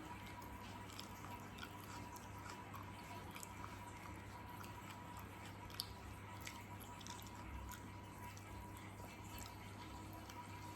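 Faint wet eating sounds close to the microphone: scattered small clicks and smacks of chewing braised pork hock, over a steady low hum.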